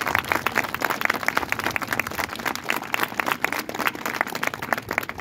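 Audience applauding: a dense, irregular patter of many hands clapping, thinning out near the end.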